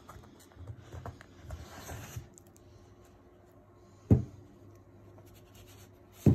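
Hands rubbing and sliding over a hardcover book's cover, then two sharp knocks about two seconds apart as the heavy book is tipped onto its edge against a wooden table.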